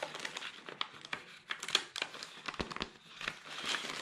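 Clear plastic bag crinkling as hands pull it open around the sheets of die-cut shapes inside, in a string of irregular crackles and rustles.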